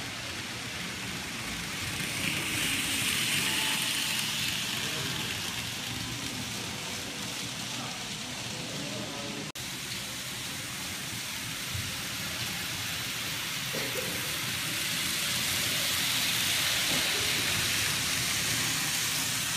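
N-gauge model trains running on the layout's track: a steady hiss that swells twice as a train passes close, with a momentary break about halfway through. Faint shop chatter sits underneath.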